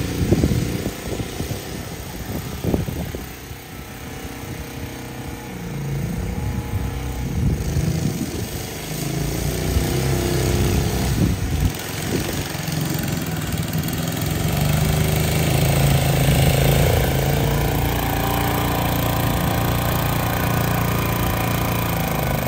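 Walk-behind greens reel mower's small petrol engine running steadily as it mows, louder in the second half as the mower comes close.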